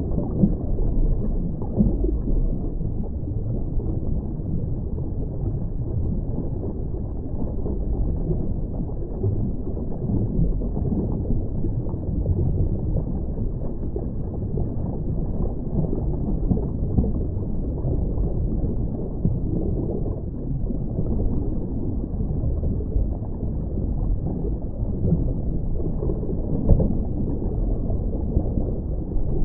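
Seawater sloshing and washing over a camera held half in and half under the surface. It is a steady, muffled, low rush with no distinct events.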